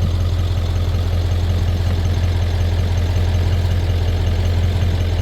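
Ford F-250 pickup's engine idling steadily with a low, even hum.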